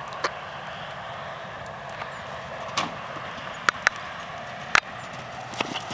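Horse cantering over a low cross-pole jump on a sand arena: a handful of sharp, irregular knocks and clicks over a steady outdoor background hiss, two of them close together about midway.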